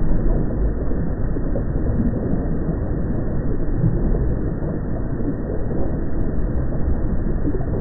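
Steady low rumble from an active volcano's field recording, an even bass-heavy drone with no separate events.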